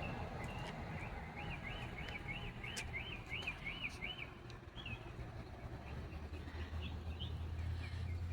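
A bird sings a quick run of about ten repeated rising-and-falling chirps, about three a second, then gives scattered single chirps. A low steady rumble runs underneath and grows louder near the end.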